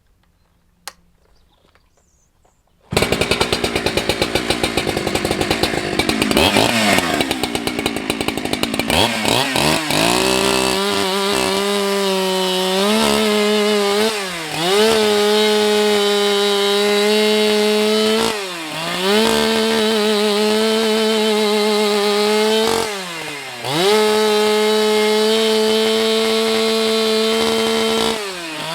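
Ported Husqvarna 365 X-Torq two-stroke chainsaw with a 20-inch bar, coming in suddenly about three seconds in. It revs unevenly at first, then runs at high, steady revs, dipping briefly in pitch and recovering four times.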